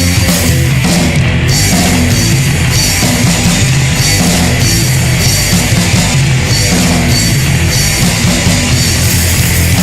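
Heavy rock band playing loud and without a break: distorted electric guitar, bass guitar and drum kit.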